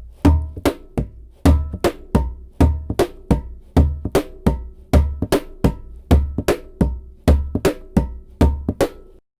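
Homemade paddle matka, a percussion instrument with a bell, played in a steady rhythm: sharp strikes about two to three a second, many with a deep thud and a short ringing tone. The playing stops suddenly near the end.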